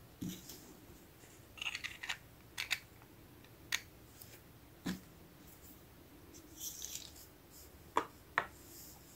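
Small plastic toy pieces handled: light clicks, taps and rustles as a miniature toy juicer's clear plastic jar is taken off its base and turned in the hands. There is a sharper knock about five seconds in, and two clicks near the end as the juicer is set down on the table.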